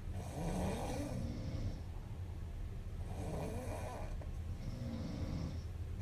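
A young woman snoring in her sleep: two loud snoring breaths, one at the start and one about three seconds in, then a softer breath about five seconds in.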